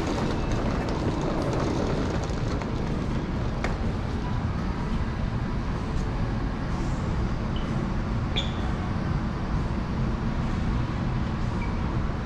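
Steady low rumble of airport terminal background noise, with a faint steady hum and a few small clicks.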